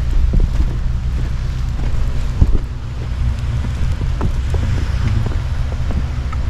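Off-road vehicle engine running steadily at low speed, with knocks and jolts from the suspension and body as it rolls over a rutted snowy dirt trail; the loudest thump comes about two and a half seconds in. Wind noise on the microphone throughout.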